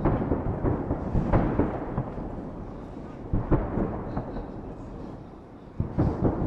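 Fireworks salute going off: a series of booms over a continuous rolling rumble, with the strongest bangs about a second and a half in, around three and a half seconds in, and near the end.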